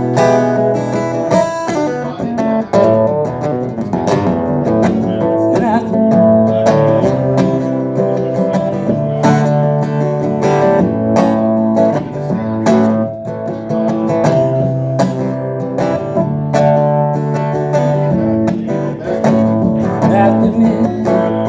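Guitar playing an instrumental break between sung verses of a live blues-rock song, with steady rhythmic strumming.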